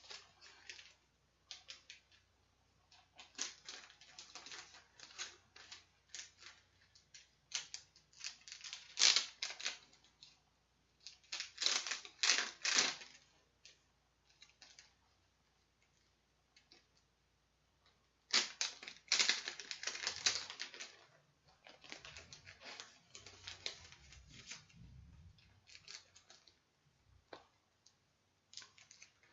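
Packaging rustling and crinkling as merchandise items are handled and unwrapped, in irregular bouts of crackly clicks, loudest around 9, 12 and 19 seconds in.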